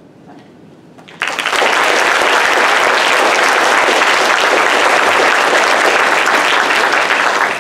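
Audience applauding, starting suddenly about a second in and holding steady and loud.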